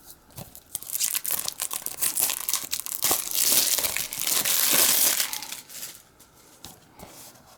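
Thin plastic shrink-wrap being torn and crumpled off a DVD case: dense crackling that builds over the first few seconds, is loudest about four to five seconds in, and then thins to a few faint crinkles.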